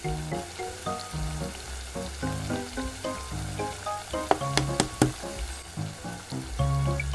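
Sauce sizzling in a miniature wok under background music; a little over four seconds in come four sharp taps as a quail egg's shell is cracked.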